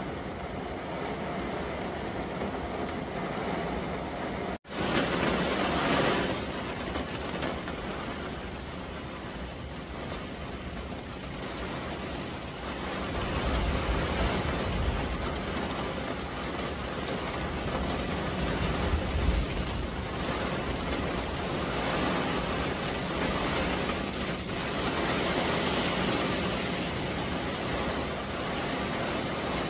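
Heavy rain and gusting wind heard from inside a car, rain streaming down the window glass. The steady rushing cuts out for an instant about four and a half seconds in, and deeper wind gusts swell up in the middle.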